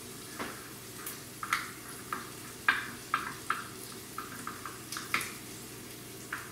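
Mashing avocado and stirring in guacamole seasoning in a small bowl by hand, the utensil giving irregular clinks and scrapes against the bowl.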